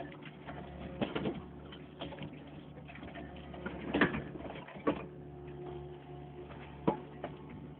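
Backhoe engine running steadily, with a few sharp metallic clanks: about a second in, the loudest at about four seconds, one just before five, and one near the end.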